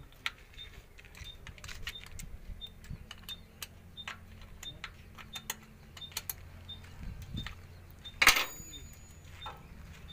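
Scattered metallic clicks and clinks of truck battery terminals and cable clamps being handled and fitted, with one louder clatter about eight seconds in.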